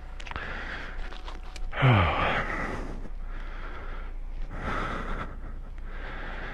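A person breathing heavily close to the microphone, a run of noisy breaths one after another. The loudest, about two seconds in, is let out with voice, its pitch dropping.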